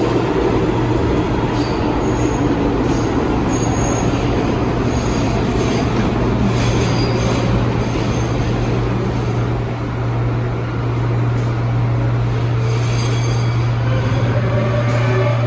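R179 subway train running on the rails: a steady low rumble with brief high-pitched wheel squeals scattered through. Near the end a rising whine comes in.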